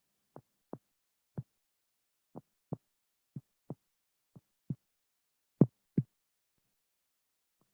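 Recorded normal heart sounds: paired thumps of the first and second heart sounds (lub-dub), about one beat a second, with clean silence between beats. The pair a little past halfway is the loudest.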